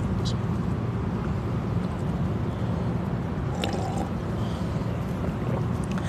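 A steady low hum, with faint clicks of a drinking glass being handled and a brief sip of water around three and a half to four seconds in.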